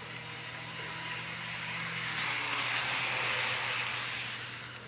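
N gauge model of a two-car Kintetsu 1252 series electric train running past on the track, its motor and wheels whirring. The whirr swells to a peak about three seconds in as the train passes close, then fades as it runs away, over a steady low hum.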